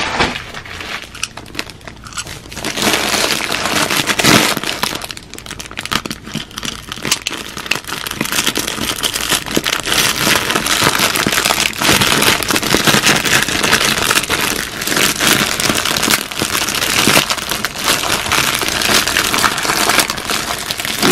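A plastic postal mailer bag being torn open and handled by hand, a continuous crinkling and crackling of thin plastic, with the clear plastic packet inside rustling as it is pulled open.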